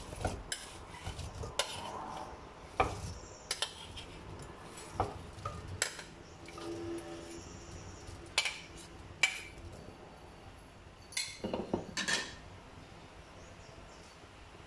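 Chopped apple chunks dropping into a saucepan as a metal spoon scrapes and taps them out of a bowl: scattered clicks and knocks that stop about twelve seconds in.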